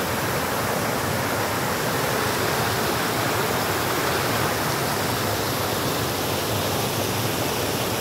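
Creek water rushing and splashing steadily as it pours over a smooth rock slab into a pool, close to the microphone.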